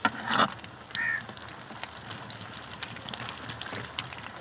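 Pakoras deep-frying in hot ghee in an iron karahi: a steady sizzle with fine crackling. A short high call cuts in about a second in.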